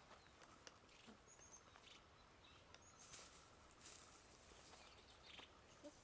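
Near silence: faint outdoor ambience with a few faint, short, high bird chirps.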